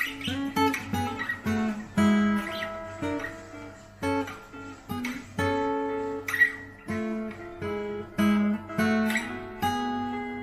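Acoustic guitar being played: a melody of picked notes mixed with short strummed chords, each note ringing on briefly.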